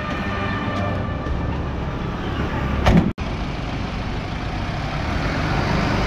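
Vehicle engine and street traffic noise, with one sharp thud just before the middle, like a car door slamming shut. After it, a steady rumble and road hiss as the Bolero pickup drives along.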